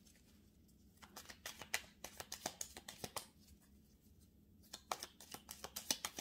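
A deck of oracle cards being shuffled by hand: a quick run of soft, papery clicks, a pause of about a second and a half, then a second run near the end.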